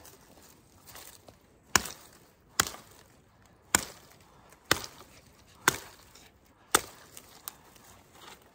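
Fallkniven S1 fixed-blade knife chopping into wood: six sharp strikes, roughly one a second, then a weaker one near the end.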